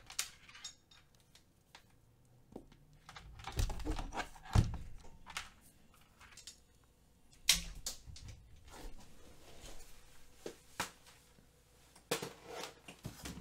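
Scattered clicks, taps and knocks of objects being handled on a tabletop, with a couple of louder thumps about four and a half and seven and a half seconds in.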